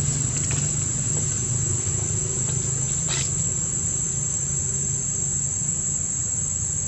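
Steady high-pitched drone of an insect chorus. Under it a low rumble fades out about five and a half seconds in, with one short squeak about three seconds in.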